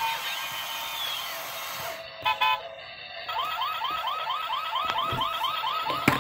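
Battery-operated toy car playing electronic sound effects through its small speaker: a noisy clip, then two short beeps about two seconds in, then a fast run of rising electronic chirps like a car alarm, about five a second.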